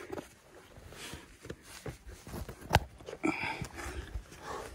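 Boots and hands scuffing and knocking against rock during a steep rock scramble, with rubbing from the hand-held phone; irregular scrapes and taps, the loudest a sharp knock a little past halfway.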